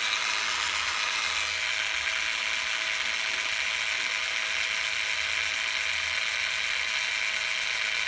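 Hitachi 7.2 V cordless drill running steadily with no load, its small motor and gearbox giving an even whine.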